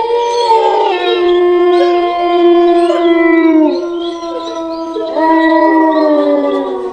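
Sound effect of dogs howling: several long, overlapping howls, each held and then sliding down in pitch. There are two long stretches, the second starting about five seconds in.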